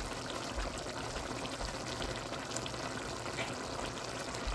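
Pot of pork igado stew boiling: a steady bubbling hiss with small scattered pops.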